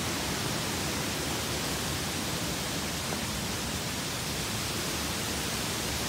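Steady rush of flowing water from swollen waterfalls and runoff, an even, unbroken hiss.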